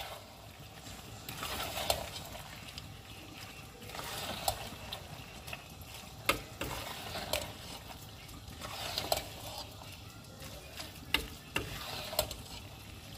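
A utensil stirring and scraping in a pan of chicken alfredo sauce cooking on the stove, with a light sizzle and sharp clinks against the pan every second or two.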